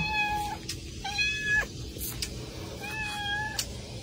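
A cat meowing three times. Each call is about half a second long and held at a fairly steady pitch.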